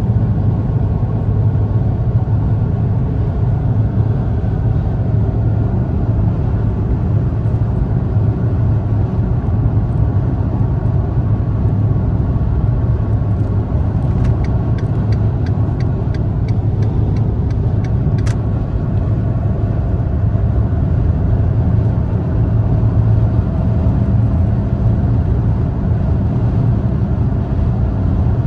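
Fiat Panda heard from inside the cabin at motorway speed: a steady, loud drone of engine, tyre and wind noise as the car accelerates in gear at around 3,000–3,500 rpm. About halfway through there is a brief run of faint regular ticks, ending in a single sharper click.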